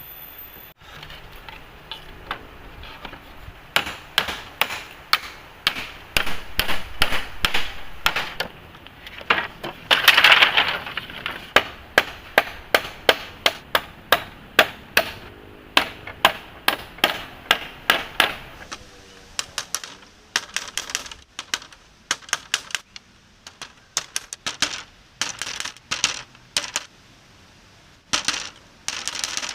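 Repeated sharp knocks, about two a second, some with a short ringing tail, thinning out and growing quieter after about 19 seconds.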